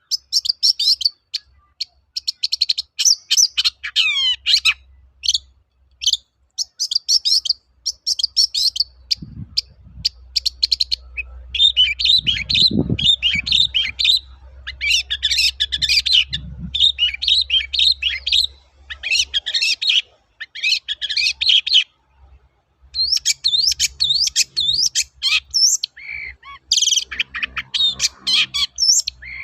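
Long-tailed shrike singing a rapid, varied chattering song in repeated bursts with brief pauses between them.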